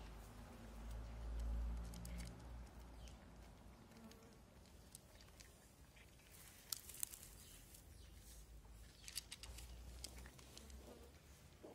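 Cats crunching dry kibble: faint, crisp chewing clicks, with a few sharper ones about seven and nine seconds in, over a low rumble in the first couple of seconds.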